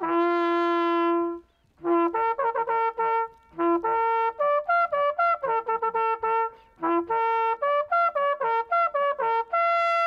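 Hunting horn blown in a fanfare: a long held note, then quick runs of short notes on a few fixed pitches with three brief pauses, ending on another held note. The call sounds the start of the hunt.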